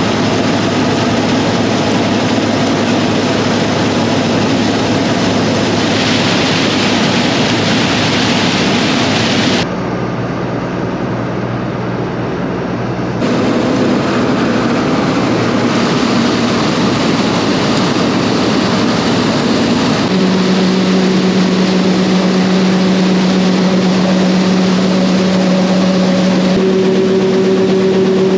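Farm machinery engine running steadily, heard in several clips joined one after another. From about twenty seconds in, a steady hum sits over the engine noise.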